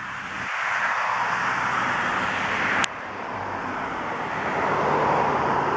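Road traffic: passing cars' tyre and engine noise, swelling as a car approaches. About three seconds in a sharp click and a sudden drop in level, after which the noise swells again as another car passes close by.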